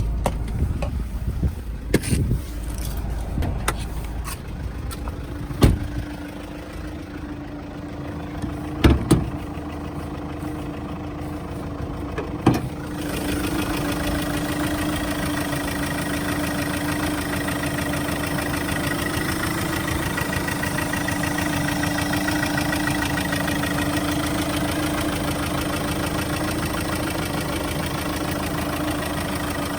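A few scattered knocks and clunks, then about 13 seconds in a vehicle engine starts and settles into a steady idle.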